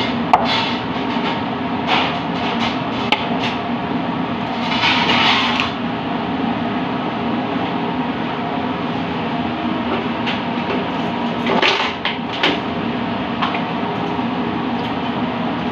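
Steady running noise of a commercial kitchen's ventilation, with scattered knocks and clicks of a bottle and utensils being handled, and a short rushing sound about five seconds in and again near twelve seconds.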